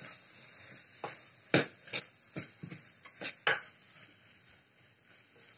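Steel spoon stirring thick onion-tomato masala in a pressure cooker, clinking and knocking against the pot about seven times in quick, uneven succession, then going quiet near the end.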